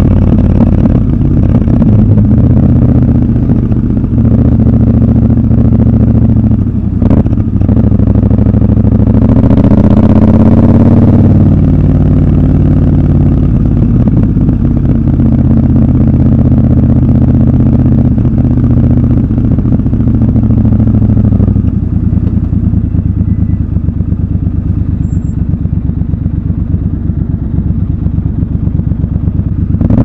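Triumph Scrambler 1200 XC's 1200 cc parallel-twin engine running under way on the road. There is a brief knock about seven seconds in, and the engine note climbs in pitch as the bike accelerates around ten seconds, then settles. The sound is quieter and duller over the last third.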